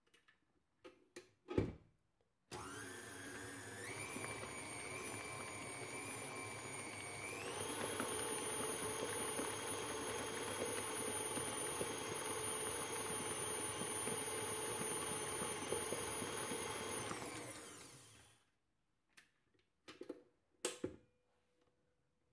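KitchenAid Artisan stand mixer motor running with the flat beater creaming butter into beaten eggs and sugar: it starts about two seconds in, steps up in speed twice, runs steadily, then switches off and winds down. A few sharp clicks and knocks before and after as the beater and mixer head are handled.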